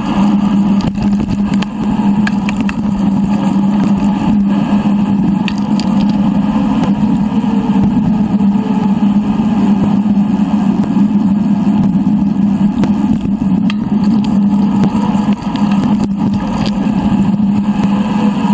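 Steady running noise of a bicycle ride on a GoPro action camera, sped up three times: a continuous hum and rumble of wind and tyres on the path, with many small rattling clicks.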